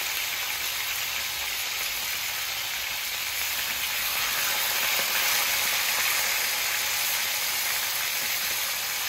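Chunks of marinated goat meat searing in very hot oil in an aluminium pot, a steady sizzle.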